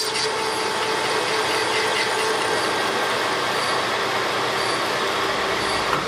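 Metal lathe running with a BMW motorcycle connecting rod bolted to its faceplate, the tool turning the rod's big end to lighten it: a steady machine hum with a light metal-cutting hiss.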